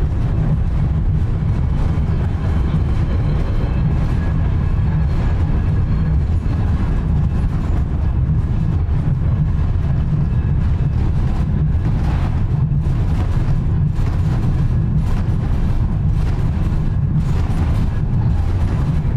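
Lycabettus funicular car running up its tunnel, heard from inside the car: a steady low rumble of the car on its rails. Irregular clicks and rattles come in from about twelve seconds in.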